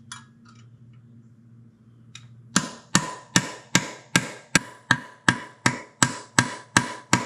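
Hammer tapping on a punch to drive the cluster-gear countershaft out of a 1939 Ford transmission case. About two and a half seconds in, a run of about a dozen sharp metallic strikes begins, roughly two and a half a second, with a steady ringing tone through them.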